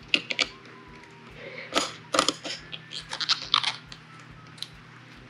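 Steel snow chain (Master Power 9060) being re-tightened by hand on a motorhome's front tyre: metal links clinking and scraping in irregular clusters, loudest about two and three seconds in.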